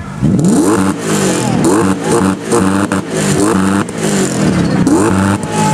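BMW E34 sedan's engine and exhaust revved hard over and over while the car stands still, the pitch climbing and dropping back about twice a second.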